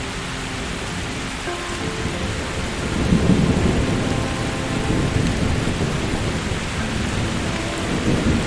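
Steady rain with a rolling rumble of thunder that swells about three seconds in and goes on for several seconds.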